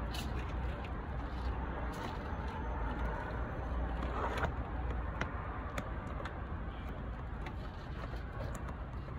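A plastic squeegee worked over wet window tint film on a car's side window, with scattered light ticks and a brief rasp about four seconds in, over a steady low rumble.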